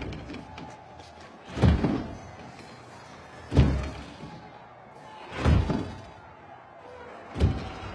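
Heavy echoing thuds in a steady slow rhythm, about one every two seconds, over a faint steady hum.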